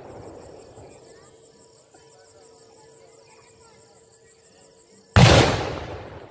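A single very loud firework bang about five seconds in, followed by a long rumbling echo that fades away. Before it, the fading rumble of an earlier blast gives way to the steady chirping of crickets.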